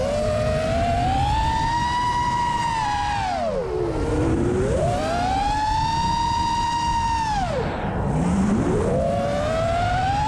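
Racing quadcopter's brushless motors whining, the pitch rising and falling with the throttle. It climbs and holds high, drops off about four seconds in, climbs and holds again, drops off near eight seconds, then climbs again near the end. Two close pitches run side by side.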